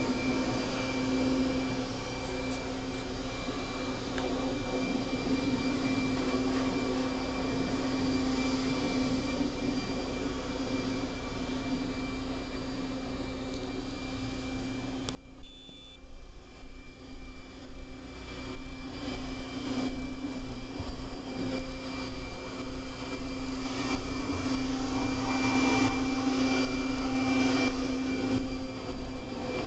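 Corded electric leaf blower running with a steady motor whine. The sound drops away suddenly about halfway through, then comes back and grows louder near the end.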